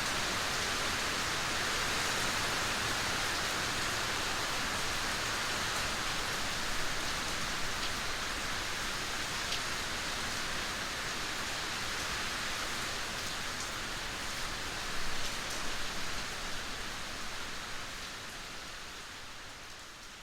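Steady rain falling, an even hiss with a few separate drop ticks, fading out over the last few seconds.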